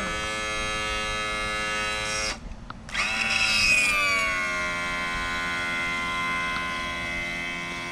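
Electric power trim and tilt pump motor on a Mercury 225 hp two-stroke outboard running with a steady whine as it moves the motor; the newly installed trim assembly is working properly. It stops a little over two seconds in, starts again a moment later, and its pitch drops and settles.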